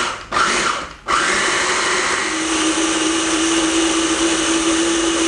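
Kenwood food processor blending a wet marinade into a paste. It gives a short pulse, then runs steadily from about a second in, and a steady motor hum settles in partway through.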